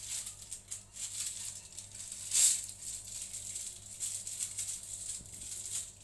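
Birds scuffling on the ledge just behind a window: dense scratchy tapping and rustling against the glass and sill, with one louder flurry about two and a half seconds in.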